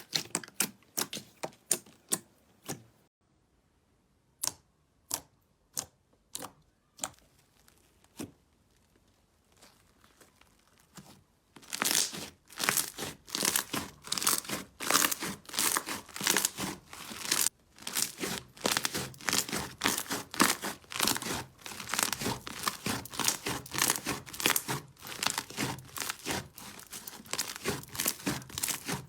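Slime being pressed and worked by hand, crackling and popping with sharp clicks. A few clicks come spaced out at first, then after several near-silent seconds the crackling turns dense and continuous.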